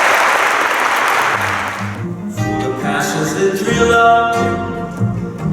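Audience applause dies away over the first two seconds, and live acoustic music starts: plucked guitar with low bass notes.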